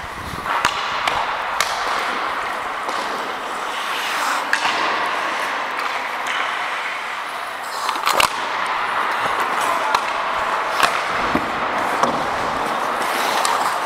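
Ice hockey in play: a steady scrape of skate blades on ice, with several sharp clacks of sticks, puck and boards scattered through, the loudest about eight seconds in.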